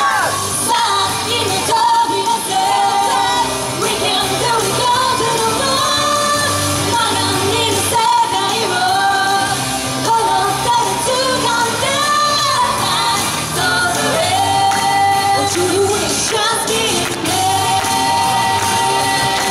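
Female pop vocal group singing into microphones over pop backing music.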